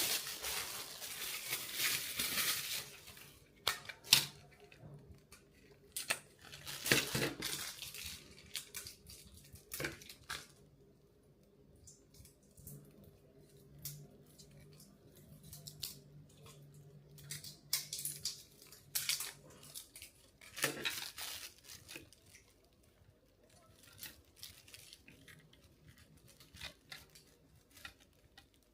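Plastic and cardboard packaging being torn and rustled as a smoke alarm is unpacked and its battery fitted. A burst of tearing and rustling comes at the start, then sharp plastic clicks and knocks every few seconds, with a quieter stretch midway.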